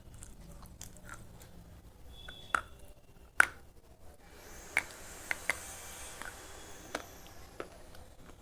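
Slate pencil being bitten and chewed, making scattered sharp cracks and crunches, about seven in all. The loudest comes about three and a half seconds in.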